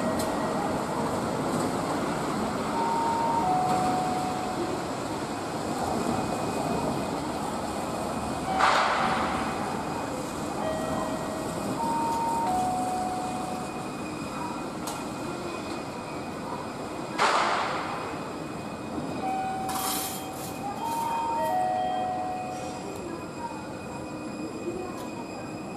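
Two-car Keihan tram running along street-running track through an intersection, over a steady background of street traffic. Two short loud hissing bursts come about 9 and 17 seconds in, and short electronic two-note tones, stepping down in pitch, sound a few times.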